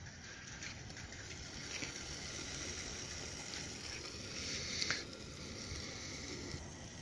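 Small wood-pellet burner stove burning, with chicken cooking dry in the pot on top: a steady hiss with faint crackles. A sharp metal clink about five seconds in as a hand works at the pot.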